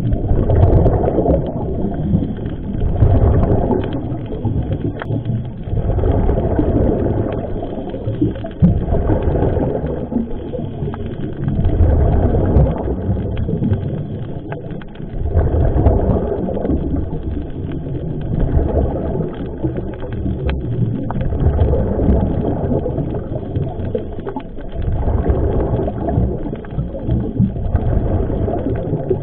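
Underwater rumble of a scuba diver's breathing through the regulator, the exhaled bubbles swelling and fading about every three seconds, with a few sharp clicks.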